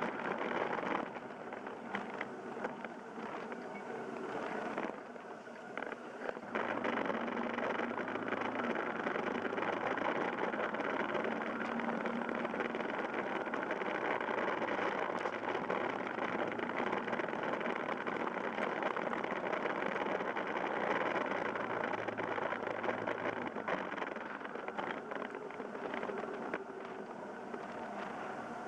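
Yamaha Fazer YS250's single-cylinder engine running under way, mixed with a steady rush of wind on the microphone. The sound drops briefly about a second in and again for a second or so around five to six seconds in.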